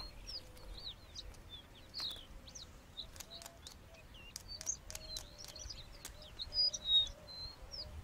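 Temminck's horned lark song: scattered short, high chirps and quick gliding notes, with a few sharp clicks among them and a couple of louder notes near the end.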